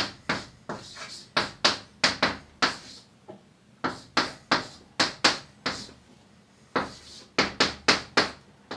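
Chalk writing on a blackboard: a quick, irregular run of taps and short scraping strokes as each character is written, with a pause of about a second past the middle.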